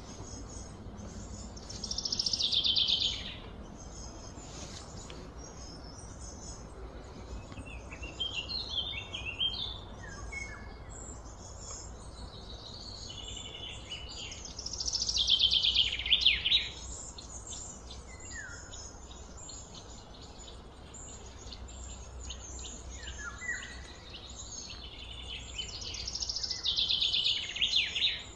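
Songbird singing: a loud trilled phrase that falls in pitch, repeated three times about twelve seconds apart, with shorter chirps in between. A steady low hum runs underneath.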